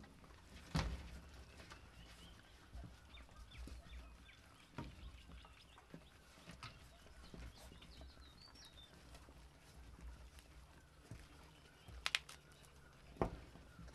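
Four-week-old Rottweiler puppies chewing raw chicken, soft and quiet, with scattered sharp taps and knocks on the floor of the pen, a louder pair near the end.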